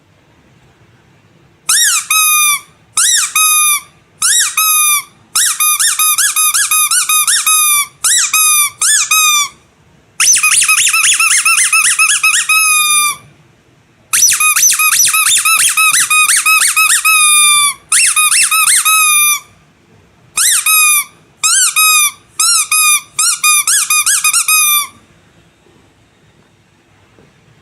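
Rubber squeaky animal toy squeezed over and over: loud, high squeaks, each one bending up and then down in pitch. They start about two seconds in and come in bursts of quick squeezes with short pauses between, stopping a few seconds before the end.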